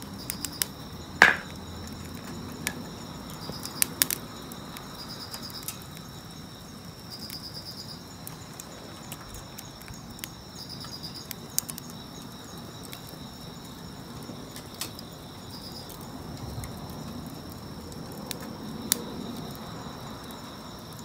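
Charcoal and wood fire crackling, with scattered sharp pops, the loudest about a second in. Insects chirp steadily in the background in short repeated trills.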